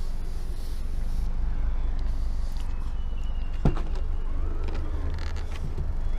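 Steady low rumble of outdoor air and wind on the camera microphone, with one sharp knock a little past halfway through as the SUV's rear door or tailgate is handled.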